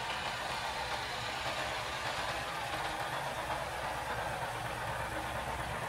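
Underfloor diesel engines of a Class 143 Pacer railcar unit running steadily with a low, even hum, typical of the unit idling at the platform.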